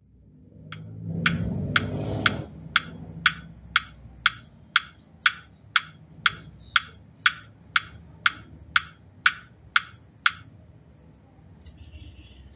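Regular, clock-like ticking, about two crisp ticks a second, runs for around ten seconds and then stops. A low rumbling noise sits under the first two seconds.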